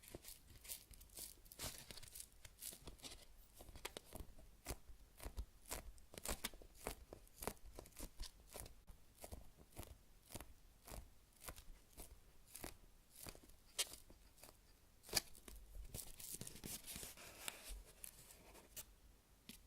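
Quiet crackly clicks and light tearing sounds, a few each second, from a high-rebound sweet-potato-shaped squishy toy being squeezed and handled, its slightly sticky cut face pulling away from the fingers. A soft rubbing hiss comes in about three quarters of the way through.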